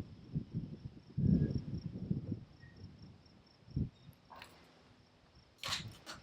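Wind buffeting the microphone in low rumbling gusts. Underneath runs a faint, steady, high-pitched pulsing chirp, and a few sharp clicks come near the end.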